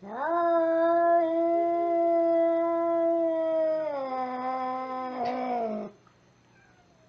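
Angry cat yowling: one long drawn-out call that rises at the start, holds steady, then drops a step lower about four seconds in and breaks off near six seconds. There is a brief click shortly before it ends.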